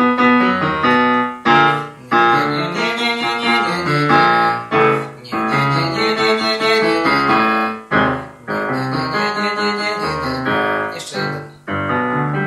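Yamaha digital piano played in chordal phrases, the notes ringing in blocks with short breaks about every three seconds as the chords change.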